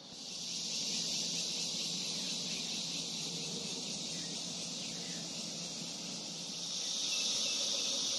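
Steady, dense chorus of insects outside the tent, a high shrill buzz that swells a little near the end.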